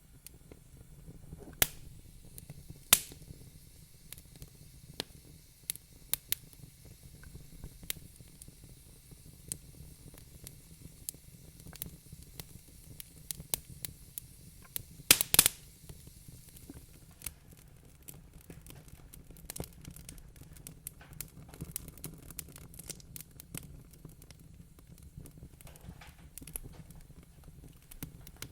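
Wood fire crackling in a fireplace: scattered sharp pops and snaps over a low steady rumble, with a quick cluster of loud pops about halfway through.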